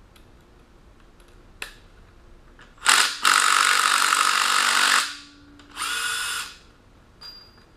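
Handheld power tool running in two bursts, one of about two seconds and a shorter one of under a second, as bolts are backed out of the engine during teardown.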